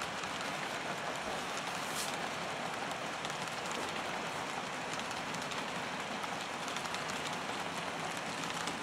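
HO scale model freight train rolling past, its metal wheels on the track making a steady rattling hiss dotted with small clicks, with one sharper click about two seconds in.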